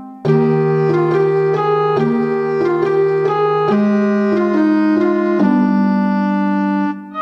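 Background music of sustained chords that change every second or so, fading out near the end.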